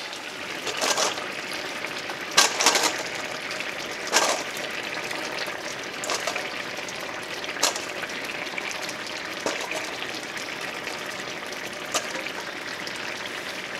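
Paella liquid simmering and sizzling in a cast-iron skillet as it reduces, a steady bubbling hiss. A handful of short clicks and clacks break through it as clamshells knock together in a stainless steel bowl and are set into the rice.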